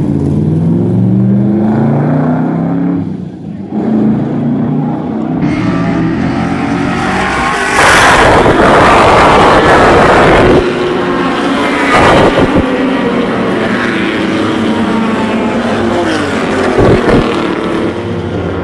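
Historic touring race cars' engines at full throttle as a pack passes on the straight, loudest from about eight to ten and a half seconds in, with more cars following. Before that, a single car engine revs up, with a brief drop about three and a half seconds in.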